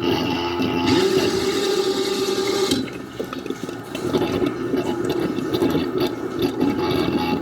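Ucclife 1.5 kg mini washing machine running: a steady motor hum with water rushing and sloshing in the tub. The rush is loudest during the first three seconds, then drops to an uneven churning.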